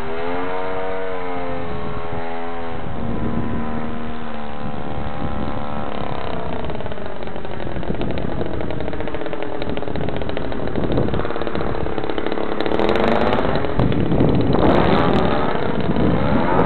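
Radio-controlled Funtana aerobatic model plane's motor and propeller running in flight, its pitch rising and falling with throttle changes and passes. It grows louder and rougher near the end.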